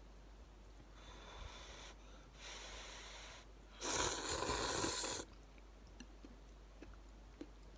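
A person slurping instant ramen noodles: two softer rushes of air, then one long, loud slurp about four seconds in that lasts over a second.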